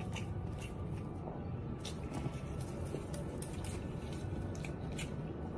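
Faint squishing and a few light clicks of fingers working through rice on a plate, over a steady low hum.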